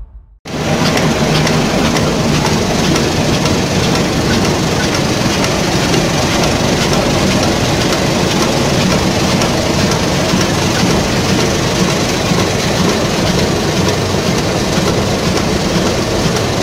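Steady, loud machine clatter of a mass of small button discs rattling over a vibrating perforated screen, starting abruptly about half a second in.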